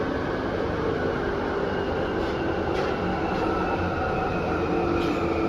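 London Underground Jubilee Line 1996 Tube Stock train running between stations, heard from inside the carriage: a steady rumble of wheels and running gear with a faint high whine slowly falling in pitch.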